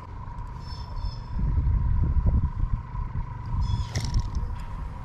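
Low, uneven rumble that swells about a second and a half in and stays strong, under a faint steady high hum, with a couple of brief high chirps.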